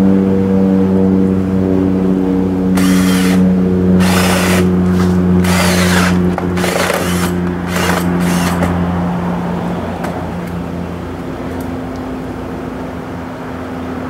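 Cordless drill with a wood bit running steadily as it bores a hole through a scooter's plastic body panel. Between about three and nine seconds in, the bit bites into the plastic in several separate spells of harsh scraping. The motor winds down about eleven seconds in.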